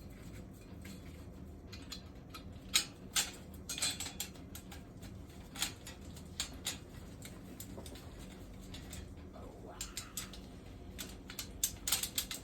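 Irregular light clicks and clinks of metal rack parts and fasteners being handled and fitted during assembly, with the sharpest clicks around three seconds in and a quick cluster near the end.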